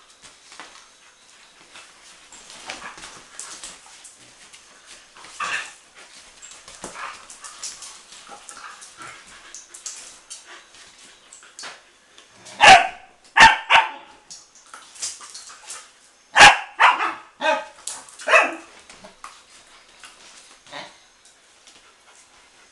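Young dogs at rough play, with quiet scuffling at first, then two bursts of loud, sharp barks about halfway through, three or four barks in each, a few seconds apart.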